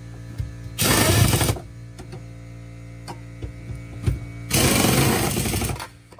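A power driver spinning a socket on an extension to run in a spare-tire winch mounting bolt, in two bursts of about a second each, one about a second in and one near the end. A steady hum runs underneath.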